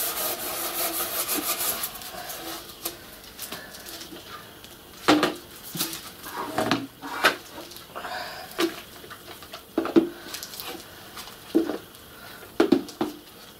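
Gloved hands scrubbing the inside of a soldered sheet-metal water tender tank in a bowl of soapy water: a rubbing hiss for the first couple of seconds, then scattered knocks and splashes as the tank is turned over and shifted in the bowl.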